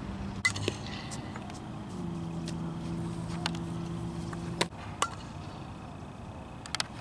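A handful of sharp pops and knocks from a softball being fielded and thrown, the ball smacking into a leather glove. A steady low hum runs through the middle and cuts off suddenly at the loudest knock.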